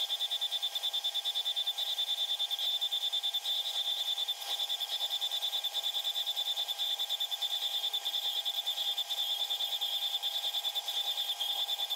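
Slitting saw on a milling machine cutting through 10 mm metal plate under flood coolant: a steady high-pitched whine that pulses rapidly, several times a second.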